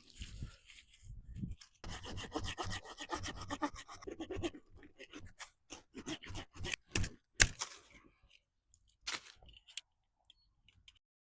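Repeated rough scraping and rubbing, with a few sharp knocks or snaps about seven seconds in and another pair about nine seconds in.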